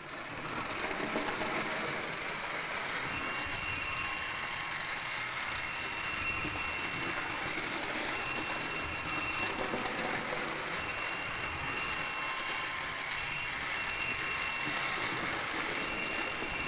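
A toy electric model train running round its track with a steady rattling rumble. From about three seconds in, a telephone rings over it again and again, each ring lasting about a second and coming roughly every two and a half seconds.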